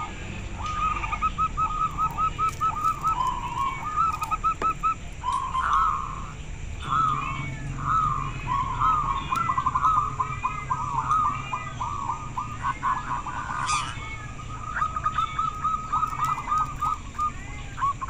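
Several zebra doves (local perkutut) cooing at once, their runs of quick, repeated staccato coos overlapping as the birds answer each other. A single brief high rising chirp cuts in about fourteen seconds in.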